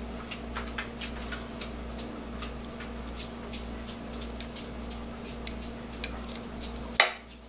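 Metal kitchen tongs clicking lightly and irregularly as they pick up and lay down blanched garlic chives, over a steady low hum, with a louder knock near the end.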